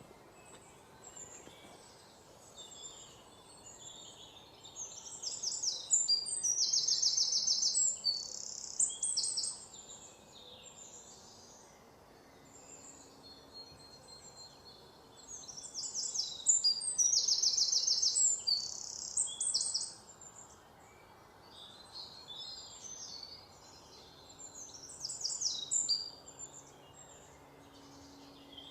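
Parrots calling in three bouts of rapid, high-pitched chattering calls, loudest in the first two, with quieter background noise in between.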